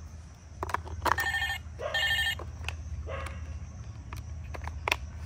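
Battery-powered plastic toy telephone giving short electronic ringtone bursts, two loud ones about a second and two seconds in and a fainter one near three seconds, as it comes on with fresh batteries. Small plastic clicks from its battery cover being handled.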